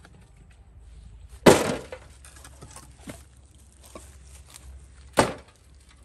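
Two chunks of wooden log dropped into a metal wheelbarrow, each landing with a loud bang: the first about a second and a half in, with a short rattling tail, the second near the end.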